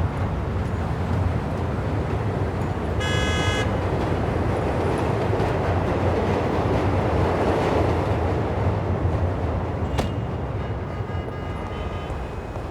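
Road traffic: a steady low engine rumble with a short car-horn toot about three seconds in and a vehicle passing in the middle.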